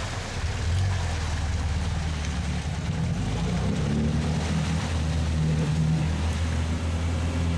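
UAZ off-roader's engine running under load as it ploughs through deep muddy water, its note wavering a little, with water sloshing and splashing around the body.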